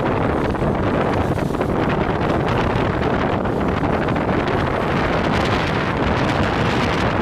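Steady road noise from a moving vehicle on a wet street, tyres on wet asphalt, with wind buffeting the microphone.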